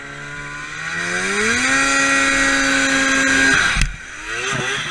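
Arctic Cat EXT 580 EFI snowmobile's two-stroke twin engine revving up and holding at high revs, then dropping off abruptly with a low thump about four seconds in as the sled tips over in deep snow; two quick revs follow near the end.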